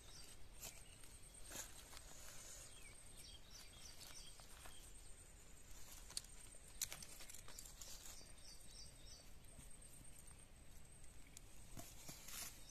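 Near silence of quiet outdoor ambience: faint high chirps in short runs of four or five, recurring every few seconds, with a few soft clicks from hands handling the cut papaya slices, the sharpest about seven seconds in.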